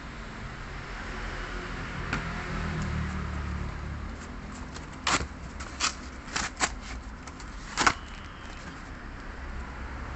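A few short, sharp crackles and clicks of packaging being handled, about five in the second half, over a steady low rumble.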